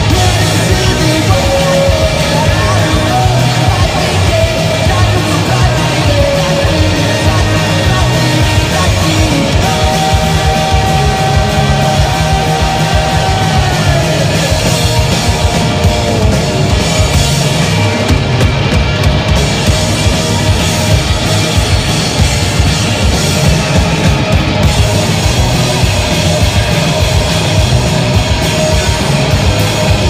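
A rock band playing live and loud: electric guitars, bass and busy drums, with a line of held notes standing out over the band in the first half.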